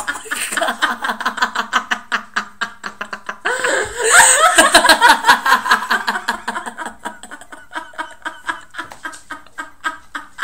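A woman laughing hard in rapid pulses, swelling loudest about four seconds in and tapering off toward the end.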